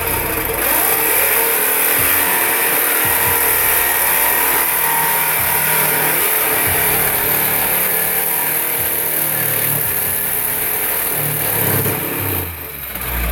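Power saw cutting through a car's exhaust pipe: a loud, steady metal-cutting noise that stops about twelve seconds in.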